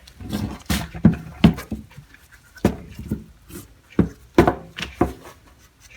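Hand-cleaning strokes on a steel toolbox: a rag rubbing back and forth over the metal in about ten short, uneven swipes.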